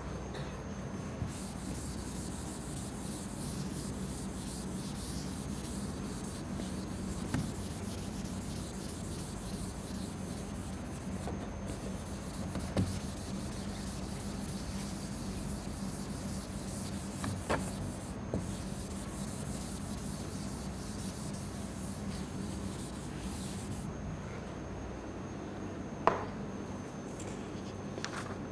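Chalkboard eraser wiping a chalkboard: a steady scrubbing that dies away about four seconds before the end, with a few sharp knocks, the loudest near the end.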